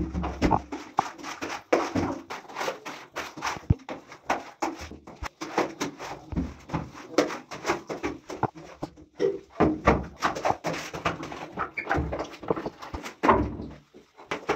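Floor squeegee pushed in many short, quick strokes across wet, soapy ceramic tile, swishing and scraping water and foam along the floor.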